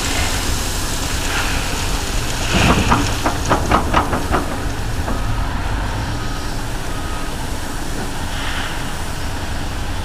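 Heavy diesel truck engine running steadily, with a quick run of sharp rattling clicks, about five a second, from about two and a half seconds in that lasts a couple of seconds.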